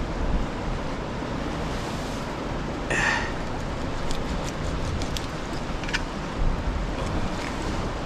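Ocean surf washing against the rocks, with wind buffeting the microphone. A short hiss stands out about three seconds in, and a few faint ticks follow.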